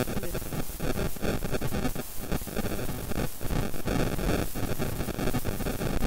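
Wind rushing and buffeting on the microphone while travelling along a road: a loud, rough hiss with a deep rumble that flutters rapidly in loudness.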